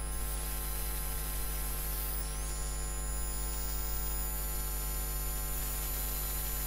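Steady electrical mains hum, with many evenly spaced tones layered above it and a background hiss. Faint high-pitched whines glide upward and then hold.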